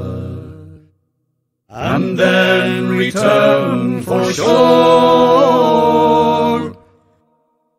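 Slow singing with long held notes. The sound cuts out briefly about a second in and again near the end.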